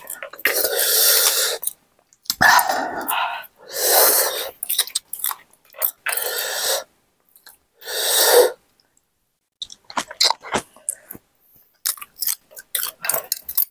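Heavy breaths pushed out through the mouth, five of them in the first eight seconds or so, from people reacting to the burn of chili-loaded meatball noodle soup. Then come chewing and quick light clicks of spoons against bowls.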